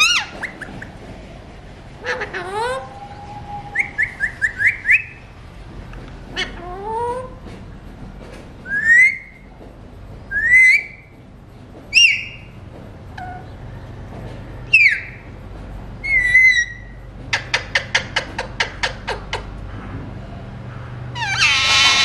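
Alexandrine parakeets calling: a string of short whistles and rising chirps, a fast run of clicking notes about four or five a second, and a loud harsh squawk near the end.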